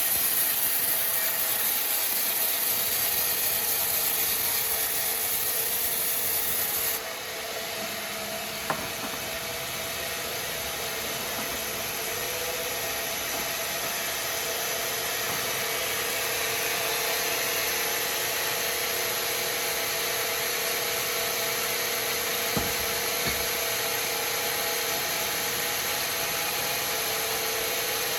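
Sawmill bandsaw cutting through a hardwood log: the blade runs with a steady hiss over a faint machine hum. The sound changes abruptly about seven seconds in, then carries on steadily.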